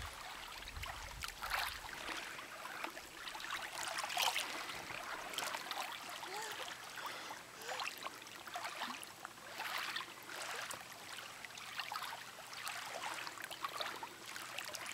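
Shallow lake water splashing and trickling in small irregular splashes as a small child crawls and paddles her hands through it over a pebble bottom.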